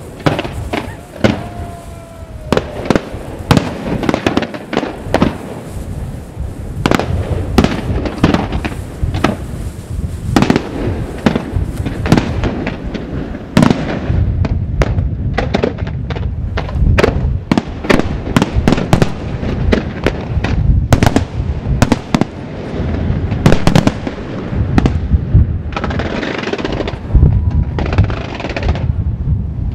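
Fireworks display: an uneven, rapid series of shell bursts and bangs that grows denser about halfway through, with crackling near the end.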